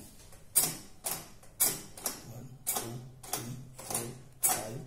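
Weight-dial knob on a Dhona 200D balance being turned step by step, clicking through its settings about twice a second, over a faint low hum.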